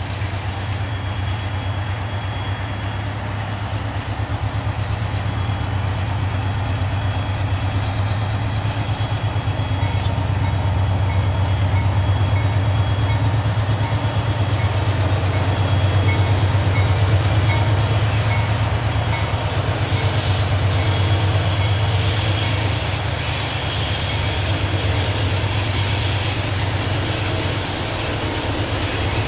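Freight train with BNSF diesel locomotives pulling covered hopper cars rolls past. A steady low diesel engine rumble mixes with rail and wheel noise, growing louder toward the middle as the locomotives come closest.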